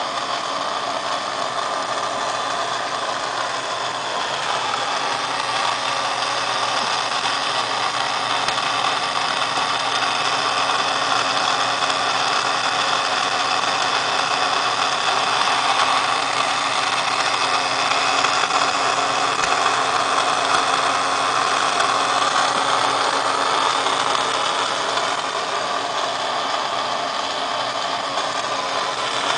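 Small electric motor and gear train of a battery-operated Rocky the Beer Man bartender toy running steadily, whirring and rattling as the figure lifts and lowers its glass.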